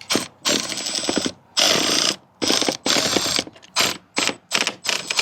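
Mounting bolts being tightened with a ratcheting tool: short repeated bursts of fast clicking with brief pauses between strokes.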